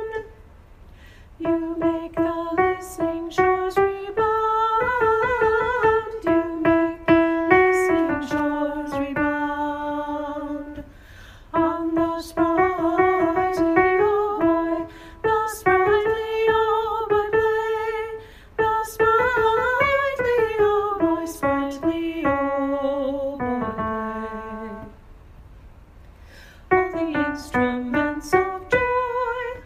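Choral rehearsal track: a treble voice singing the alto line with vibrato over piano accompaniment, in phrases broken by short rests.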